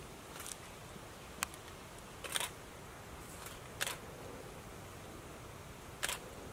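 About five sharp, short clicks of a camera shutter at irregular intervals, the loudest a double click about two and a half seconds in, over a steady low hiss.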